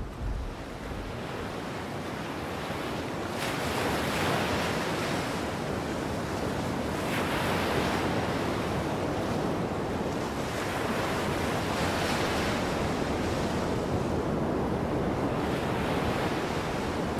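Waves washing onto a beach, the surf swelling and falling back about every three to four seconds.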